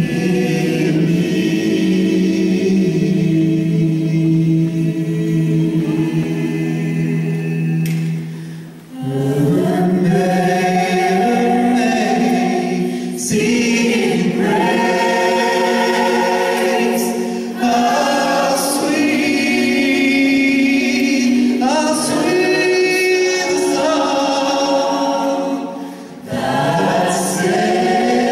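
Gospel choir singing unaccompanied in harmony, holding long chords, with brief breaks about a third of the way in and near the end.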